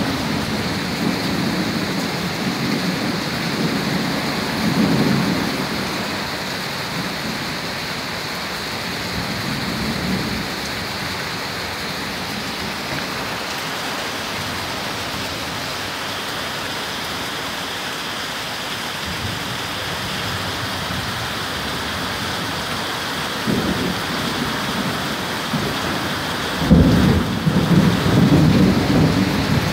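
Steady rain hissing down during a thunderstorm, with thunder rumbling low in the first few seconds. Near the end a louder thunderclap breaks in suddenly and rolls on.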